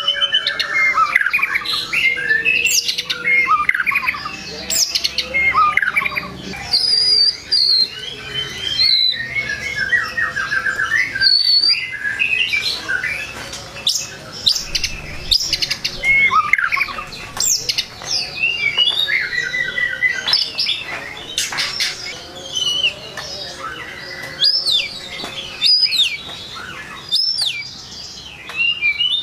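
White-rumped shama (murai batu) in full song: a rapid, varied run of whistles that glide up and down, trills and sharp clicking notes, broken by short pauses. It is a 'gacor full isian' song, packed with mimicked phrases, the kind used to rouse rival male shamas.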